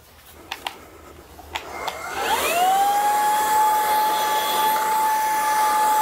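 A few clicks as the MOOSOO K17 cordless stick vacuum is handled, then about two seconds in its motor spins up, with a rising whine that settles into a steady high-pitched hum on the low power setting.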